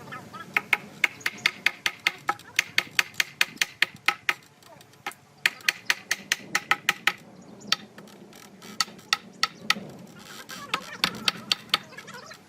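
Rapid hammer blows on wood, about five a second, in several runs broken by short pauses.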